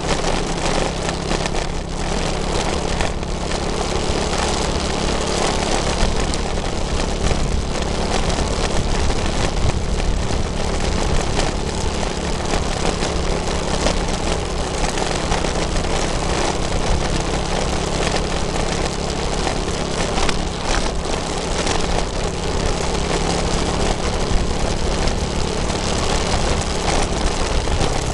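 Vehicle engine running steadily at cruising speed under loud wind and road noise, heard from the moving vehicle.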